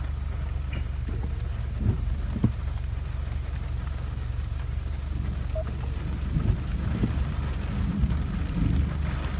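Rain falling on a car, heard from inside the closed cabin: scattered individual drops tap sharply over a steady low rumble.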